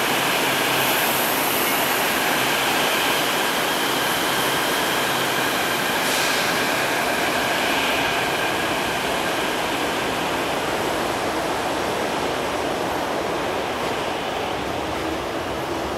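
CAF/Mitsubishi Series 500 metro train pulling out of the station and running off into the tunnel: a steady rushing rumble with a faint high whine, easing slightly near the end.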